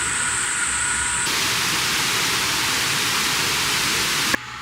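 Steady hiss of rain. It grows louder and brighter about a second in, then cuts off abruptly near the end.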